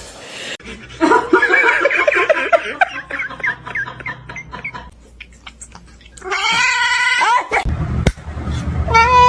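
A cat making a quick run of short, wavering cries, then one longer drawn-out meow, with another meow starting near the end.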